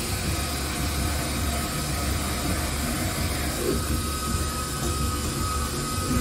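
Liquid nitrogen jetting from a hose nozzle into a stand mixer's bowl of ice cream mix: a steady hissing rush with a low rumble underneath and a faint steady whine.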